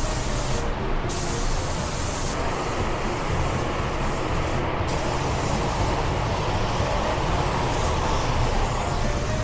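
Compressed-air paint spray gun spraying car paint with a steady hiss, the sharp high part of the hiss dropping out briefly twice between passes.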